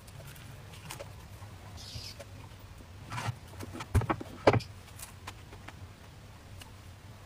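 Handling knocks and clatter, the loudest two close together about four seconds in, as the plastic lid of a small electric crepe pan is lifted and set back. Earlier comes a soft rustle of shredded spring onion being packed into a thin crepe, all over a low steady hum.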